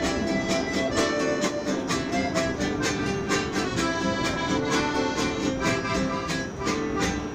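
Accordion-led music with a steady beat.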